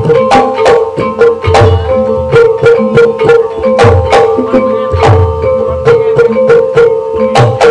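Live ebeg dance accompaniment: hand-drum strokes in a brisk, steady rhythm with low thumps, over held ringing tones from struck tuned instruments.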